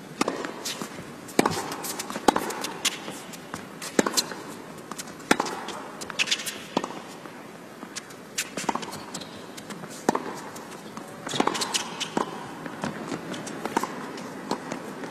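A long tennis rally: sharp pops of rackets striking the ball and the ball bouncing on the court, coming irregularly about once a second, over the hush of an indoor arena crowd.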